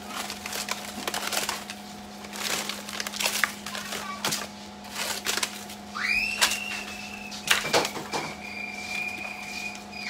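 Frozen, plastic-wrapped meat packages being shifted and stacked in a chest freezer: crinkling plastic and hard knocks of frozen packs against each other and the basket, over a steady low hum. About six seconds in a thin high whine rises and holds steady to the end.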